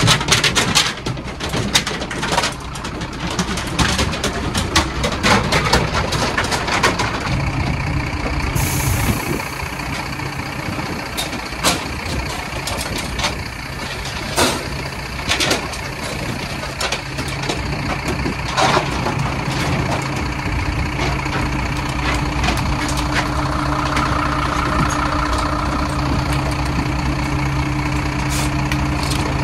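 Livestock transport truck's diesel engine idling steadily, with scattered knocks and clatters. A hiss of air starts a little under a third of the way in and fades.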